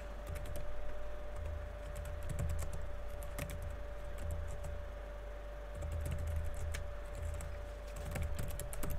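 Typing on a computer keyboard: irregular runs of keystroke clicks with short pauses between words, over a faint steady hum.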